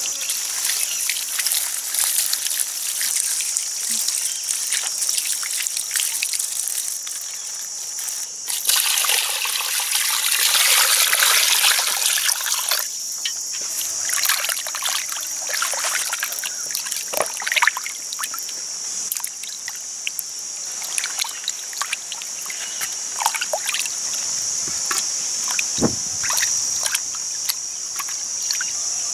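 Water pouring, sloshing and splashing as cut fish steaks are washed by hand in a basin of water, with a louder steady pour for a few seconds about a third of the way in and small splashes and drips after it. A steady high-pitched drone runs underneath.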